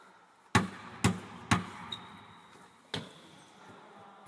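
Basketball bouncing on a hardwood gym floor, each bounce echoing in the large hall: three bounces about half a second apart, then one more after a pause.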